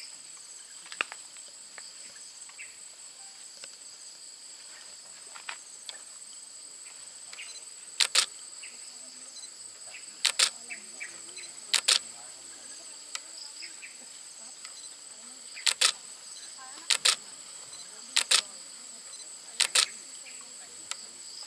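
Insects droning steadily at a high pitch. From about eight seconds in, sharp clicks come in quick pairs every second or two, louder than the drone.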